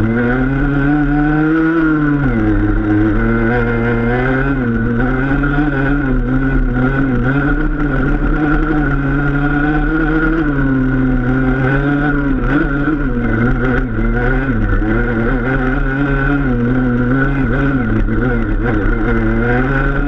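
Enduro dirt bike engine running on the trail, held at fairly steady revs that rise and fall a little with the throttle.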